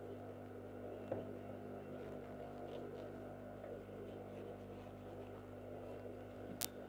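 Steady low electrical hum, with faint rustles of stiff organza fabric being handled while the gathering thread is pulled, and one sharp click near the end.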